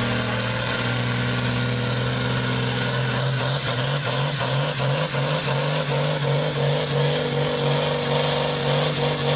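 Heavily loaded farm pulling tractor's diesel engine running hard while it drags a weight-transfer sled, pouring black smoke. The note is steady at first, then from about three seconds in it pulses about three times a second.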